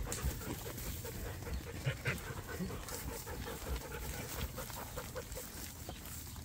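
Border collie panting while working a flock of sheep, with soft irregular scuffing of the sheep moving over the dirt and straw.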